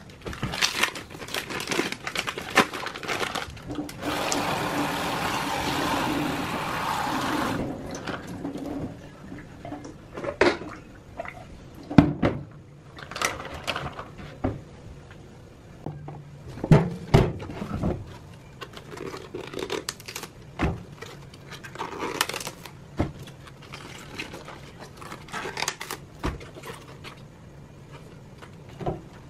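Washing up food at a stainless-steel kitchen sink: a plastic bag crinkling, the tap running for a few seconds about four seconds in, then scattered knocks and clatters of a bowl and vegetables against the steel sink.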